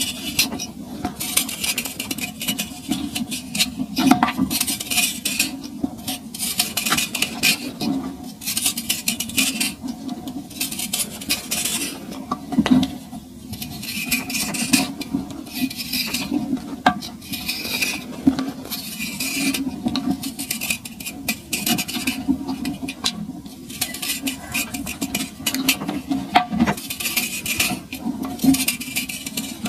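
A lump of packed, dried sand scraped with a small knife blade and crumbled by a thumb: a gritty rasping in repeated short strokes as the sand breaks away.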